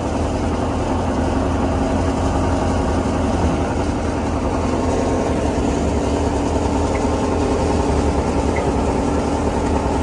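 Engine-driven wheat threshing machine running steadily, a constant low engine drone under the noise of the machine.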